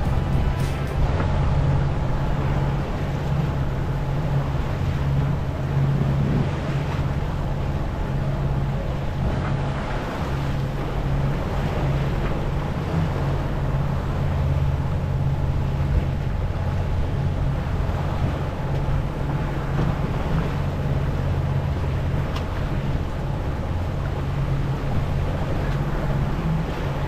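A sailboat's engine running steadily under way, a constant low hum, with water rushing along the hull and wind on the microphone.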